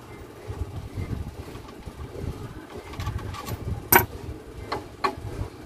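A few sharp clicks and knocks of hand tools and loose bolts being handled on a workbench, the loudest about four seconds in, over a low steady background rumble.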